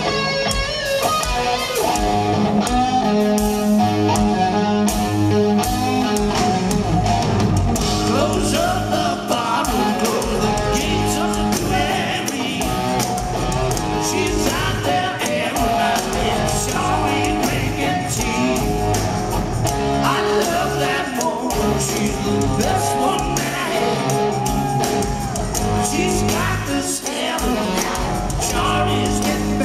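Live rock band in concert: an electric guitar leads at first, and a male singer sings over guitar and drums partway through.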